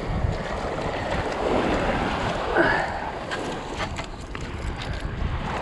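Small waves lapping at the shoreline, with wind on the microphone and a few light clicks a little after halfway.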